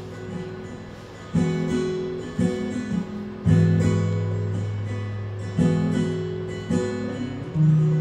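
Solo acoustic guitar, with no voice: chords are struck every second or so and each is left to ring and fade, a slow instrumental ending to the song.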